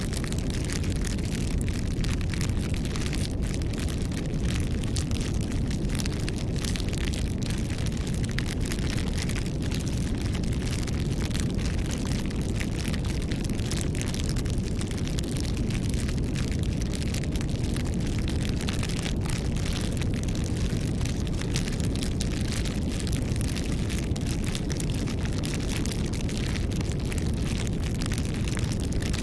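Campfire crackling: many quick, sharp pops and snaps over a steady low rumble.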